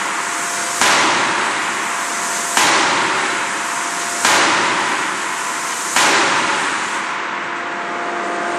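Closed-die forging hammer striking a glowing hot workpiece: four heavy blows about 1.7 seconds apart, each a sharp bang that trails off over about a second, over a steady faint machine tone.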